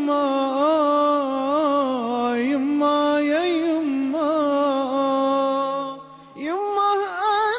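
A nasheed sung in layered voices with a vocal backing in place of instruments: long, wavering held notes. It breaks off briefly about six seconds in, then a voice slides up into the next phrase.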